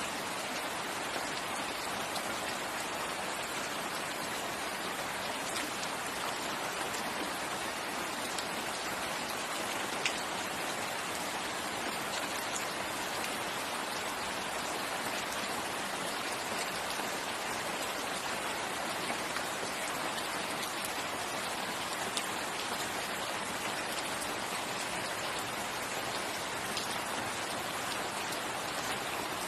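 Steady rain falling in a forest, an even hiss with a few sharper drops here and there, the clearest about ten seconds in.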